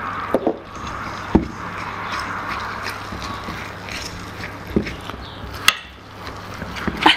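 Wire whisk stirring thick cornmeal batter in a stainless steel bowl: a steady scraping, with several sharp clinks of the whisk against the metal.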